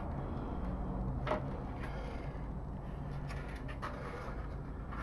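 Quiet handling of a slow cooker's stoneware insert and its cardboard packing ring, with a few faint knocks and rubs as it is turned over in the hands.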